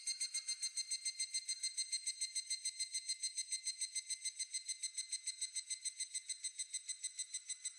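Insect chirping: a steady, fast, high-pitched pulsing trill of about nine pulses a second, like crickets. It fades down near the end.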